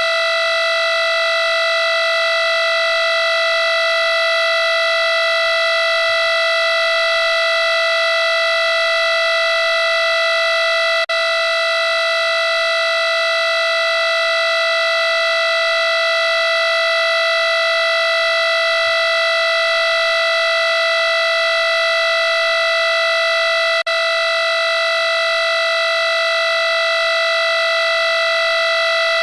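A single loud, steady electronic tone held at one pitch without change, cutting out for an instant twice, about 11 and 24 seconds in.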